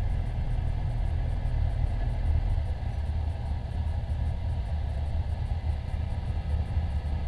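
Steady low rumble of idling engines, with no distinct events.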